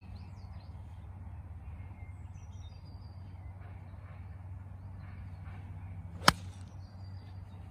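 A steady low hum with faint bird chirps, then a single sharp crack of a golf club striking the ball about six seconds in.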